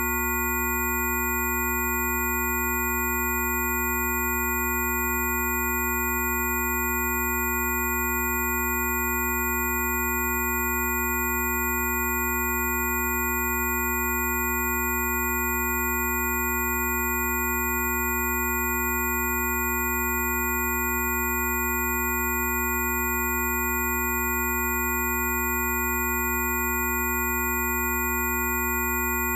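A steady blend of pure electronic tones: a low hum with several higher steady pitches layered over it. None of them wavers or changes.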